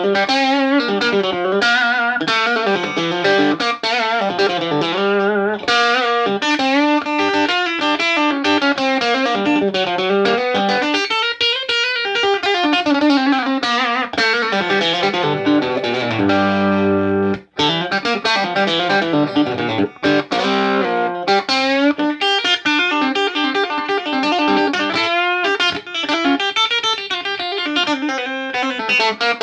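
Electric guitar played through a 1962 Fender 5F1 tweed Champ tube amp, a single-6V6 combo, in fast single-note lead lines. Partway through a chord rings out and then stops abruptly, and the playing resumes a moment later.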